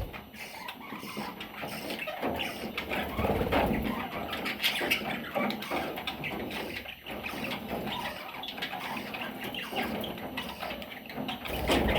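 Pet budgerigar chattering, a run of short, irregular calls.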